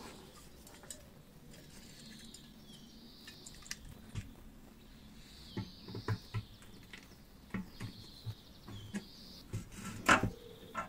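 Scattered light metallic clicks and clinks of pliers and small parts against the steel case of a battery charger as its wiring and terminals are taken out, the loudest knock about ten seconds in. Faint high chirps sound repeatedly in the background.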